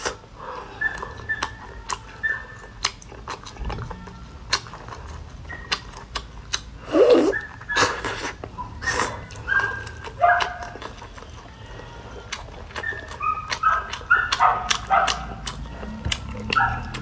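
Close-up chewing and mouth sounds of someone eating boiled octopus: wet clicks and smacks. Short high-pitched whines come in between, most of them near the end.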